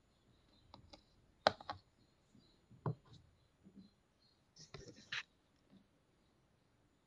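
Faint scattered clicks and light knocks: a sharp one about a second and a half in, another near three seconds, and a short cluster of several around five seconds in.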